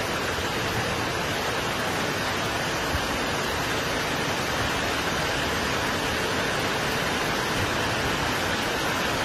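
Floodwater rushing, a steady even noise of fast-moving water.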